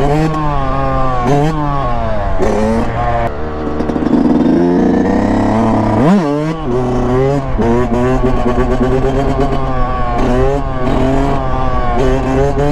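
A Yamaha YZ125 two-stroke dirt bike engine, heard from the rider's seat, revs up and drops back over and over as the bike accelerates and shifts. About six seconds in there is a quick, sharp rise and fall in pitch.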